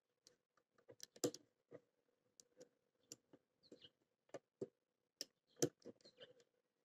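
Faint, irregular clicks of a curved hook pick and tension wrench working the pins of a small brass padlock, DABEL KA 2014 35mm, with two louder clicks near 1 s and near 5.5 s.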